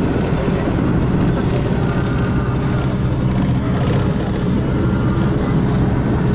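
Steady engine and road rumble heard from inside a moving vehicle's cabin, with a faint steady hum joining about three seconds in.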